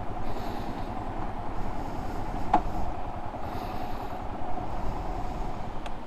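Steady rushing of a mountain stream or waterfall, with soft scuffs of footsteps on the path about once a second and a couple of small clicks.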